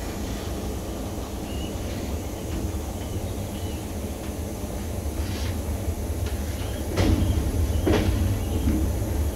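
Passenger train coach running along the track: a steady low rumble of wheels on rails, with a few sharp knocks about five, seven and eight seconds in, and a step up in loudness from about seven seconds.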